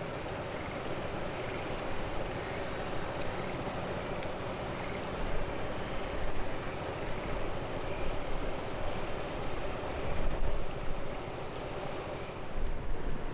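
A fire burning with a steady rush, scattered with faint sharp crackles.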